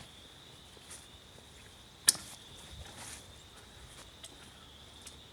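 Quiet outdoor background with a steady high-pitched insect drone, broken by one sharp click about two seconds in and a few fainter ticks.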